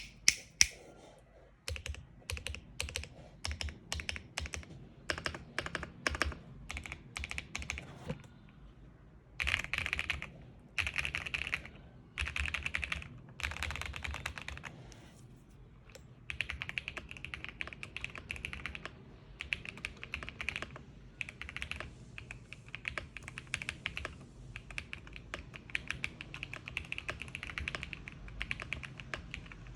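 Typing on a Lucky65 V2 mechanical keyboard built with full foam: a few louder clacks at the start, then single keystrokes about two a second, then short runs of fast typing, and from about halfway on steady fast typing.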